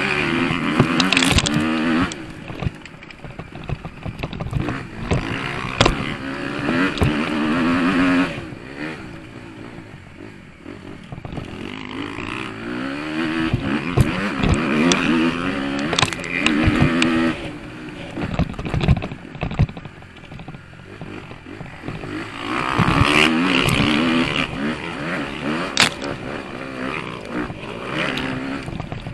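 Motocross bike engine heard from on board, revving hard in repeated bursts and dropping off the throttle between them as the bike rides a dirt track. Sharp knocks and clatter from the bike over the bumps.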